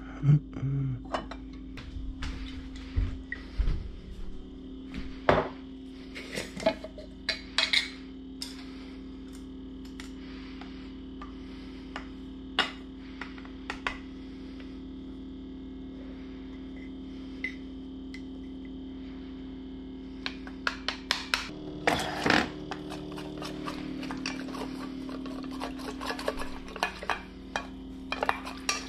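Kitchen handling sounds: glass bottles knocking together as they are sorted in a drawer, then scattered clinks and taps. Near the end, chopsticks click rapidly against a stainless steel bowl while stirring. A steady low hum runs underneath.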